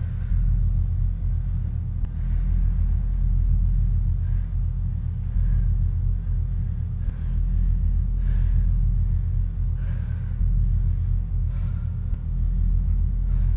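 A low, steady rumbling drone, with a woman's short, heavy breaths or gasps every second or two.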